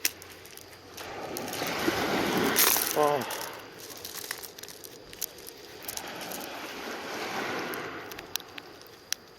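Sea water washing and sloshing in two swells, with scattered light clicks and a brief voice about three seconds in.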